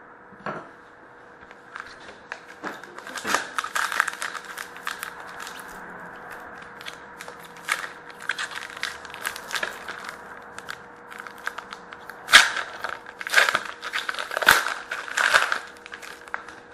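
Hockey card packs being opened and their cards handled: wrappers crinkling and tearing, and cards clicking and sliding against each other in irregular clusters, loudest in the last few seconds. A faint steady hum lies underneath.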